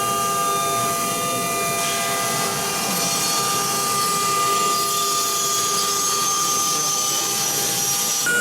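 Blue Elephant CNC router running a cut: a steady spindle whine of several held tones over the noise of the cutting. Some tones drop out and others start as the machine moves.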